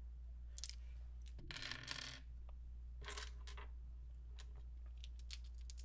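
Hard plastic polyhedral dice clicking and clattering on a wooden desk as a handful is set down and handled: a few clicks, a denser clatter about one and a half seconds in, another around three seconds, then a few light ticks.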